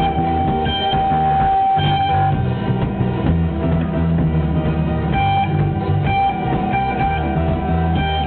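Live electro-rock band playing, with guitar over a bass line and a high note held for long stretches. Dull, low-fidelity recording with the top end cut off.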